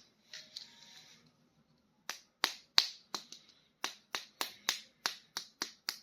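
Hard plastic toys or packaging being handled: a soft rustle, then about two seconds in a quick run of sharp plastic clicks or taps, roughly three to four a second.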